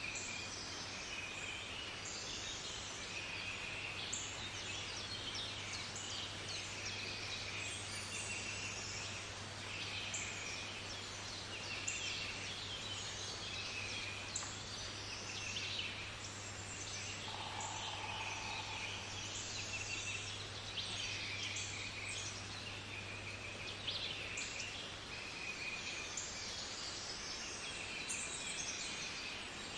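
Woodland bird chorus: many short, repeated high calls overlapping one another throughout, over a steady low hum that stops near the end.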